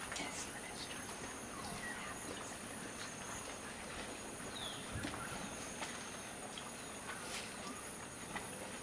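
Forest ambience: a steady high-pitched hum with scattered short chirps and faint clicks.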